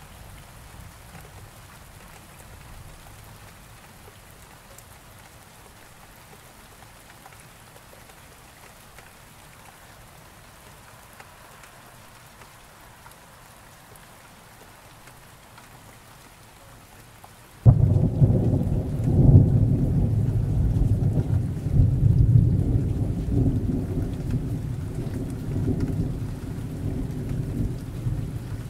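Steady rain falling, then about two-thirds of the way in a sudden loud clap of thunder that rolls on as a deep rumble to the end.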